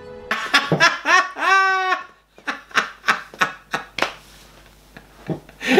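A man laughing hard: a high, drawn-out outburst, then a string of short laughs about three a second that fade out.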